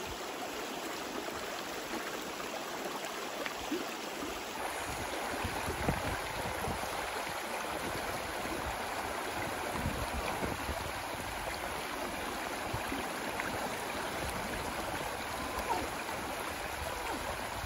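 River water rushing steadily, an even noise with no break.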